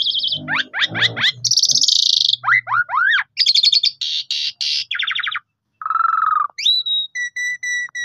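Javan pied starling (jalak suren) singing a fast, varied song of buzzy trills, quick rising sweeps and harsh chatters. Near the end it gives a rising whistle, then a row of short, evenly spaced whistled notes.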